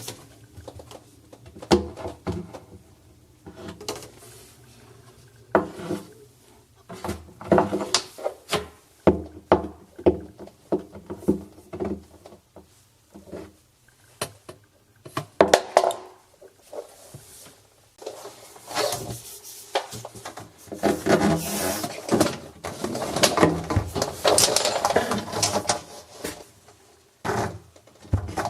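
A run of irregular knocks, clicks and short scrapes from hands handling parts and tools. Longer stretches of rubbing and scraping come in the second half.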